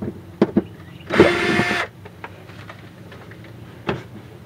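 Cordless drill running briefly, for about half a second, a little over a second in, as it backs a screw out of a window frame. A few sharp clicks come before and after it.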